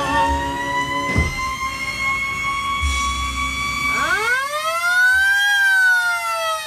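A siren wailing: a long held tone that rises slowly, then about four seconds in it winds up sharply from low to high and slowly falls away.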